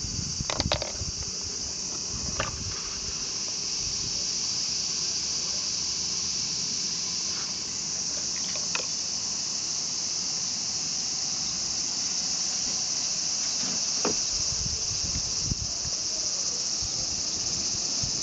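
A steady, high-pitched insect drone. A few short clicks and knocks come through it, the first within the first second.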